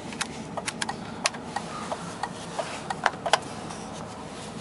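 Scattered light clicks and taps, unevenly spaced, from a gloved hand handling the plastic controls and trim around the steering wheel and dash in a car cabin, over a steady low hum.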